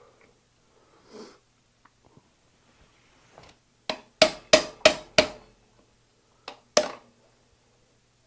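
Hammer blows knocking a stuck press-fit bottom bracket cup out of a bicycle frame's shell. A quick run of five sharp strikes, about three a second, comes a few seconds in, then a lighter tap and one more strong strike after a short pause.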